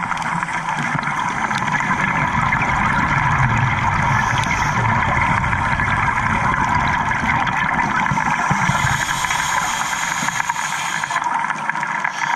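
Muffled underwater noise picked up through a camera's housing, with the low rumble and gurgle of scuba divers' exhaled bubbles swelling and fading; a brief hiss near the end.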